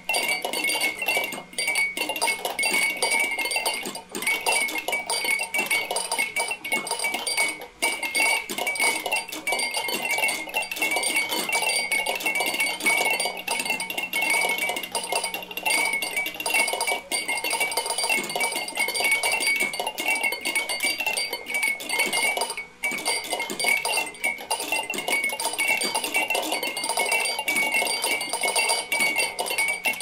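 A large crowd of drinking-bird toys bobbing at once: a dense, steady clatter of overlapping glassy clinks and taps, with a faint ringing over it and a low hum underneath.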